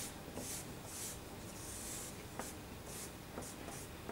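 A black drawing stick scraping across large paper on an easel in a run of short scratchy strokes, with one longer stroke about halfway through.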